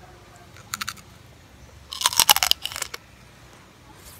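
Teeth biting through crispy lechon (whole roast pig) skin: a few light crackles, then a burst of loud, sharp crunching about two seconds in.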